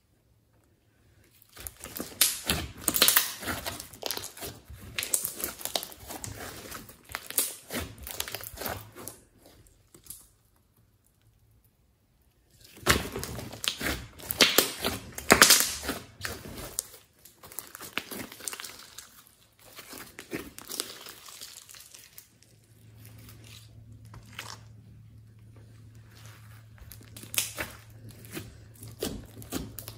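Hands squishing and kneading a glossy slime mixed with small coloured beads: sticky, crackling squelches in bursts, with a pause of a couple of seconds about a third of the way in. Over the last third the squishing gets softer and a faint low hum sits underneath.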